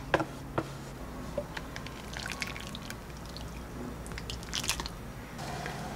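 Kitchen handling sounds: first a few light clicks of a plastic takeout container against a plate, then a ladle scooping dumplings and broth from a metal pot into a bowl, with wet splashing and dripping. A steady hum comes in near the end.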